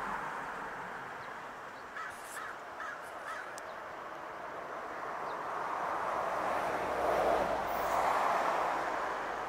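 A crow cawing four times in quick succession, over a steady rushing background noise that swells near the end.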